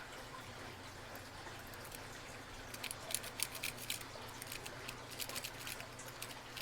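Faint irregular metallic clicking and scraping from lock picks working the pins of a brass Euro cylinder lock, starting about three seconds in.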